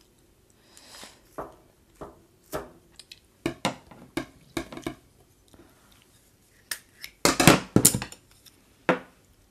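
Metal serving tongs clicking and scraping against a metal tray of braised short ribs, a scattered series of short clinks with a louder clatter about seven seconds in.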